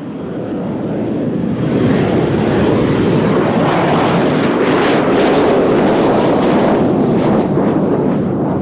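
Jet noise of a Royal Air Force Harrier GR.7's Rolls-Royce Pegasus turbofan as the jet flies past in a display. The loud rushing engine noise builds over the first two seconds, then holds steady, with a rough crackle in the middle.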